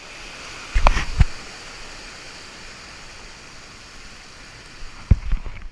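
Surf breaking and churning over rocks close to the microphone, a steady rush of whitewater, with a few sharp thumps about a second in and again near the end.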